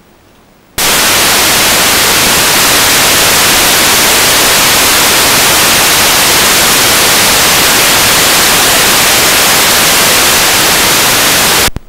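Loud static hiss of an analog FPV video feed that has lost its signal: an even noise that starts abruptly about a second in and cuts off abruptly near the end.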